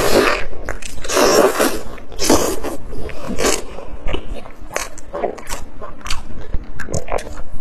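A person eating loudly close to the microphone, biting and chewing with wet, crunchy mouth sounds that come in bursts about once a second.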